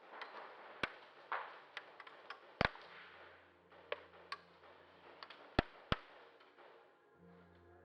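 Irregular sharp ticks and clicks of an indoor airsoft game: BBs striking hard surfaces and single airsoft shots, with a few louder cracks.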